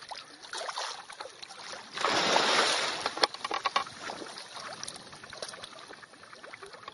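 Lake water sloshing and splashing around an elephant as it wades or swims, with a louder rush of splashing about two seconds in that lasts about a second, then smaller splashes and clicks.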